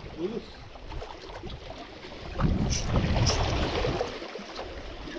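Sea waves washing against breakwater rocks with wind buffeting the microphone; the water surges louder about halfway through, with two short sharp clicks.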